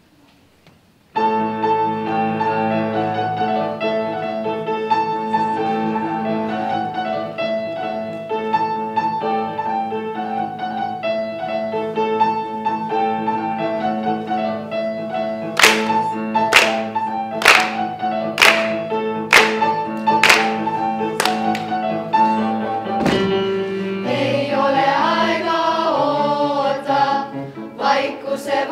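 A children's choir sings, starting suddenly about a second in with long held chords. Midway the singers clap together about once a second, nine times or so, and near the end the voices move into a moving melody.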